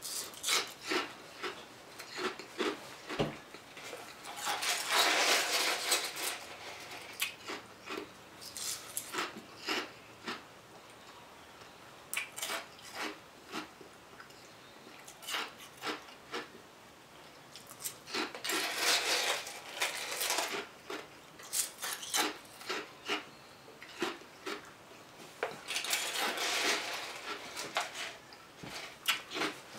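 Crushed ice being chewed: crisp crunches, at times single and at times in long close runs. A plastic spoon scrapes and taps in the cup between mouthfuls.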